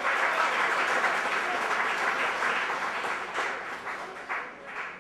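Football crowd clapping and cheering a goal, loud at first and dying away over the last second or two.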